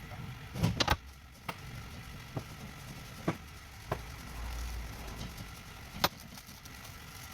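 Sharp metallic clicks and knocks at irregular intervals, the loudest two close together about a second in and another about six seconds in, over a steady low hum, as of gearbox parts and tools being handled on a workbench.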